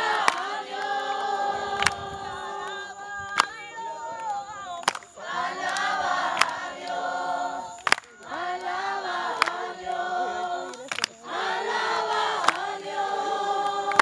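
A group of people singing together, many voices holding long notes in phrases with short breaks between them. A sharp click or clap sounds about every second and a half.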